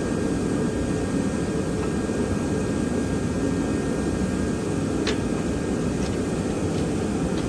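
Steady whooshing fan noise, even throughout, with one faint click about five seconds in.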